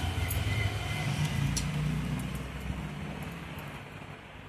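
Low rumble of a passing road vehicle that fades away, with a few faint clicks.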